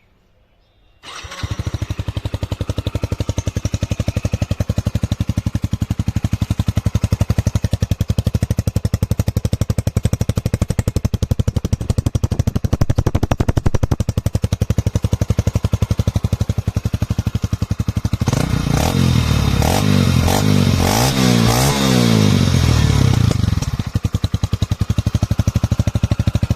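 Hero Splendor BS6 motorcycle's single-cylinder four-stroke engine starting about a second in and idling through an aftermarket silencer, with a thick, heavy exhaust note. It is revved up and down several times about two-thirds of the way through, then drops back to idle.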